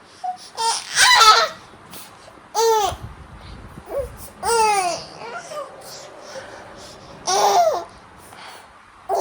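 A baby vocalizing in short high-pitched squeals and coos, about five separate sounds, each rising then falling in pitch, the first and loudest about a second in.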